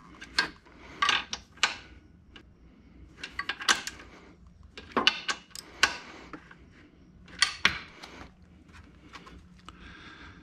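Metal hand tools, a hex key and a ratcheting wrench, clinking and clicking against the bolts of the belt tensioner mount as they are tightened: irregular sharp metallic clicks and clanks.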